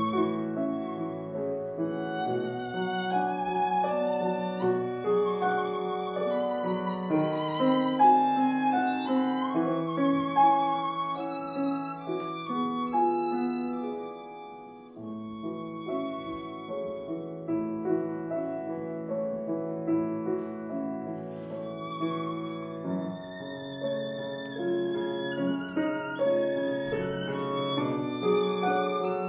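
Violin and piano playing together: a bowed violin melody with vibrato over piano accompaniment, with a brief lull about halfway through.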